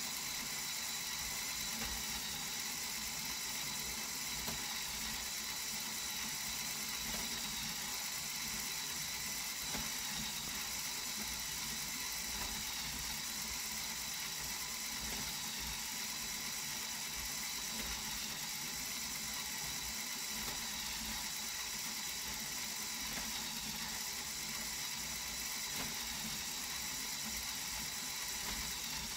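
LEGO Technic kinetic mechanism's motor and plastic gear train running with a steady whir and a light ratcheting rattle of the gears.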